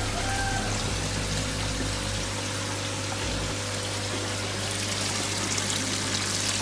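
Water running and splashing steadily into a koi pond, with a low steady hum underneath.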